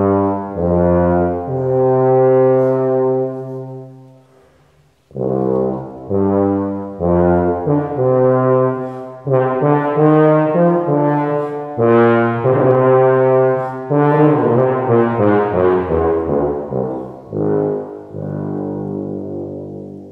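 Solo rotary-valve tuba playing a slow melody: a long held low note that fades away, a short pause, then a phrase of shorter notes rising and falling, closing on held notes that die away.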